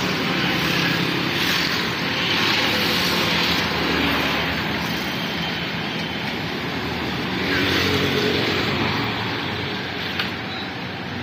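Busy street traffic: engines and tyres of motorcycles, auto-rickshaws and a large coach going past close by, swelling as vehicles pass about two seconds in and again around eight seconds.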